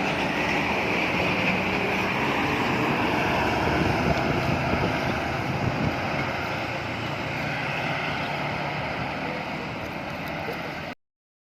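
Bus on the move: steady engine and road noise with wind rushing, with no clear horn note, cutting off suddenly near the end.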